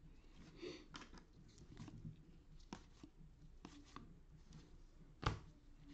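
Football trading cards being flipped through in gloved hands: faint card-edge ticks and slides, with one sharper click about five seconds in.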